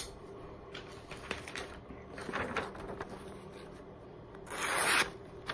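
A sharp click as the folding knife's blade is moved, then faint paper rustling, and about four and a half seconds in a brief hissing rip as the Spyderco Para 3 Lightweight's new edge slices through a sheet of newsprint in a sharpness test.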